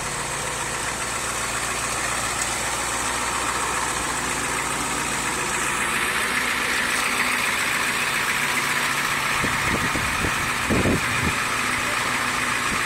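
Large truck engine idling steadily, with a few low thumps a little before the end.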